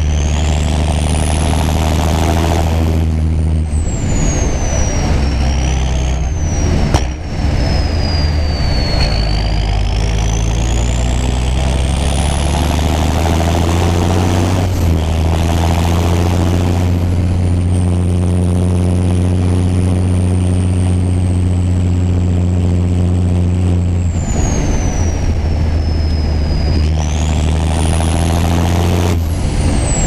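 John Deere 6930's six-cylinder turbo diesel engine running steadily under way. The engine note shifts pitch several times, and a thin high turbo whistle rises and falls with it.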